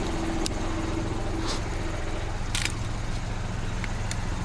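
An engine running steadily under a few light metallic clicks and rattles, as a socket and tools are handled.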